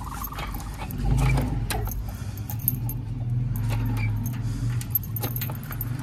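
A bunch of keys jangling and clinking against a padlock as it is unlocked, in many small irregular clicks, over a low steady hum.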